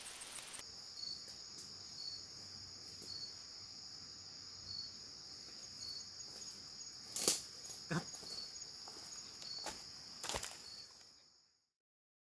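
Chorus of jungle insects keeping up a steady, high-pitched shrill drone with a faint regular pulse, broken by a few sharp knocks, the loudest about seven seconds in. The sound fades out about eleven seconds in.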